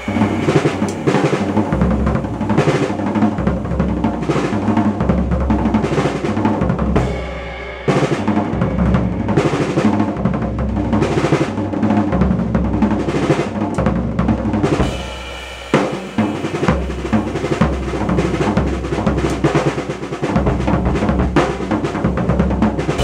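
1965 Ludwig Club Date drum kit played with sticks: a steady groove on snare, bass drum and cymbals. The bass drum drops out twice, briefly, for a fill.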